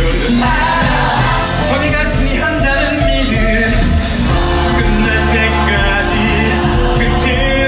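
Live musical-theatre song: cast singing over loud instrumental accompaniment with a steady beat.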